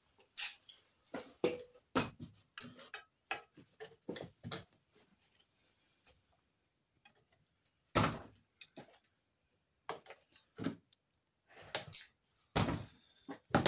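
Scattered clicks and knocks from handling the metal limbs and cables of a homemade aluminium crossbow. There is a quick run of them over the first few seconds, then a quiet stretch, a louder knock about eight seconds in, and more clicks near the end.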